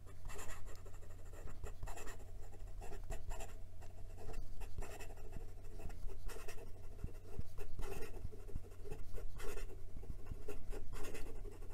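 Fountain pen with a fine Schmidt nib writing quickly in cursive on lined notebook paper: an irregular run of light nib scrapes and ticks as the strokes go down.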